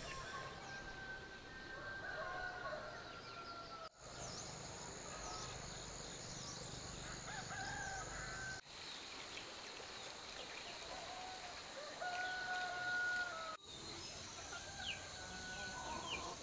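Rooster crowing several times, each crow a long held call, with small birds chirping in between. The sound drops out abruptly three times.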